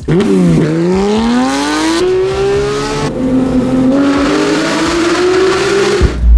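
Porsche 911 GT3's flat-six with a full Fi exhaust, accelerating hard with the pitch climbing. A quick upshift about three seconds in drops the revs before they climb again, and the sound cuts off shortly before the end.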